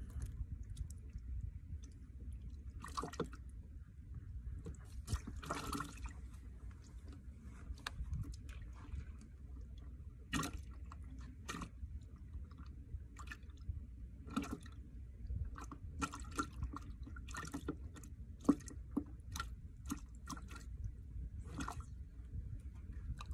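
Water lapping and dripping against shoreline rocks over a low steady rumble, with scattered short clicks and rustles from handling fishing tackle and a caught fish.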